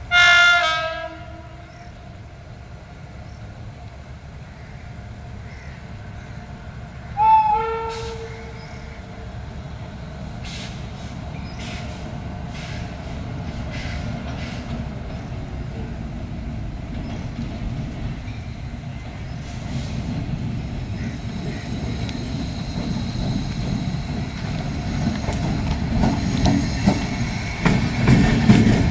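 Electric locomotive horn sounding two blasts, a short one at the start and a second about seven seconds in that slides up in pitch and then holds. Between and after them, the rumble of the approaching Rajdhani Express, with scattered clicks, grows steadily louder as the WAP-7 locomotive and its coaches draw close.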